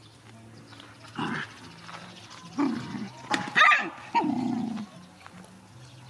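Two young dogs play-fighting, giving four short barks and vocal outbursts. The loudest comes about three and a half seconds in.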